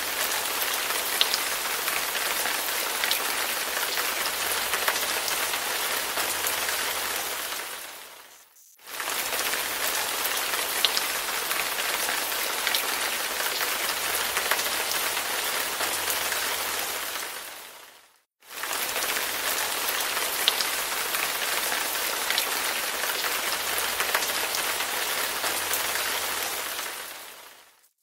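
Recorded rain falling steadily, an even hiss with scattered sharp drop ticks. It fades out and straight back in twice, about every ten seconds, as a short rain recording loops.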